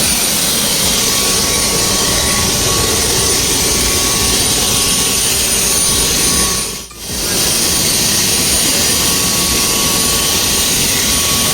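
Helicopter turbine engine running steadily, a loud rushing noise with a thin high whine over it, which briefly drops away about seven seconds in.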